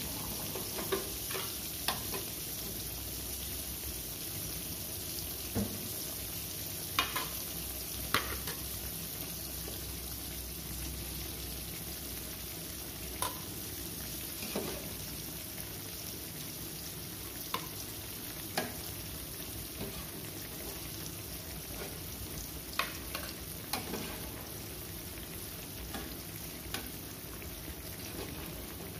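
Oil sizzling steadily as food fries in an aluminium wok, with a metal spoon clinking sharply now and then against an aluminium pot and plate.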